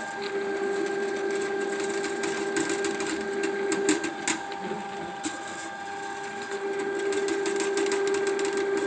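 Ridgid electric drain-cleaning machine running steadily with a constant motor hum as it turns its cable, with scattered clicks and rattles.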